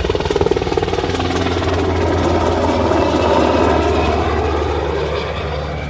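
Black Hawk military helicopter flying low past: rotor chop and engine noise growing louder to a peak about three seconds in, then fading as it moves away.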